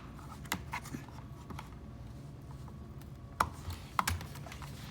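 Scattered small clicks and knocks of hands working a rubber cable holder, pulling out the plug that fills one of its holes to make way for a new cable. The loudest knocks come about three and a half and four seconds in.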